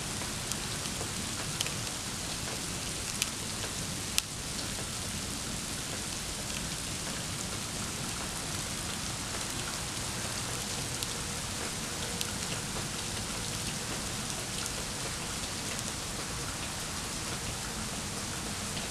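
Steady patter of wet snow falling, with scattered sharp ticks of single flakes or drops striking close by, most of them in the first few seconds.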